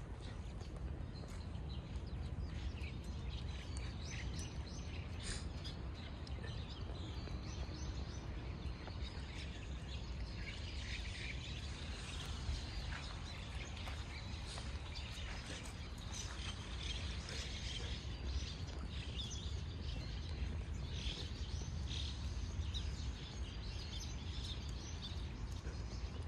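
Outdoor ambience: a steady low rumble with birds chirping on and off throughout.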